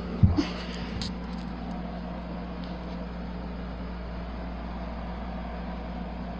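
Steady low background hum with hiss, and a short knock about a quarter second in, as the handheld phone is moved.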